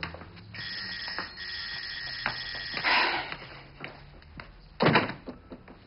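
An electronic doorbell rings with a steady tone for about two seconds. Near the end a loud thud comes as the door is unlatched and opened.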